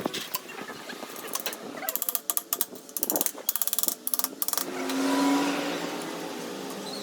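Rapid clicking and rattling for the first four seconds or so, then a vehicle engine that swells about five seconds in and runs steadily.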